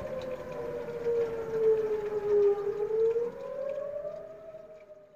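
Outdoor tornado warning siren wailing: its pitch sinks slowly, then climbs back up about three seconds in, and the sound fades near the end.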